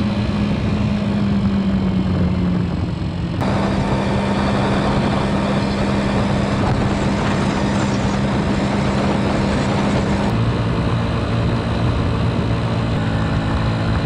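Honda Ruckus 49cc four-stroke scooter engine running steadily under way, with wind rushing over it. The engine note drops lower about ten seconds in. It is the test ride after the clogged carburettor was cleaned and re-jetted.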